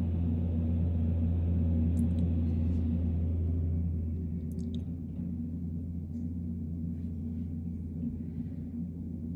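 Compact track loader's diesel engine running steadily, a little quieter after about four seconds, with a few faint clinks.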